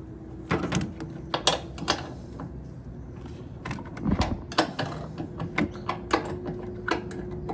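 13 mm hand wrench working the shock absorber bolts under a washer-dryer drum: irregular metallic clicks and knocks, a few a second.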